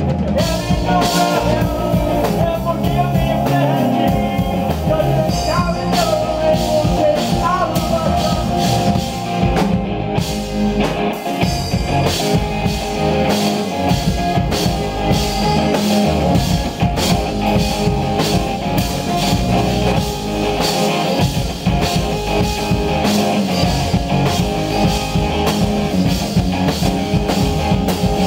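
Live rock band playing a steady jam on hollow-body electric guitar, electric bass and drum kit.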